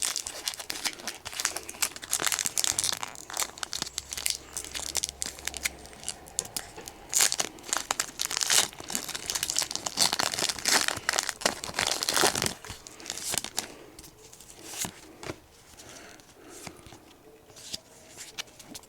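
Foil Pokémon booster pack wrapper crinkling and being torn open, with dense crackling for about twelve seconds, then quieter, sparser rustling.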